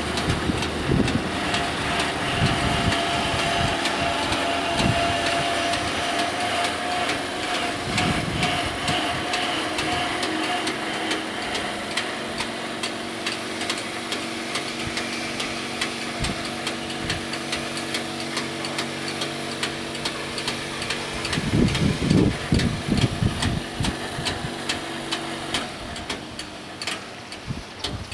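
Italian level-crossing bells ringing in rapid strikes while the barrier booms lift after the train has passed, with a whining barrier motor in the first half. The ringing stops near the end as the crossing clears. A motor runs steadily in the second half, with a few low thumps.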